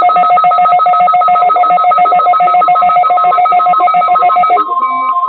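Loud electronic weather-radio alert signal: two steady pitches with a rapid trilling pulse, like a ringing telephone. It cuts off about four and a half seconds in, and a single steady tone near 1 kHz begins, the weather radio warning alarm tone.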